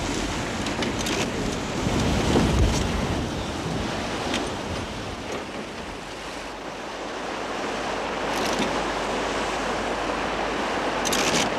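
Water rushing and splashing along the hull of a skûtsje, a Frisian sailing barge, under way under sail, with wind buffeting the microphone. The rush eases a little about halfway through, then builds again.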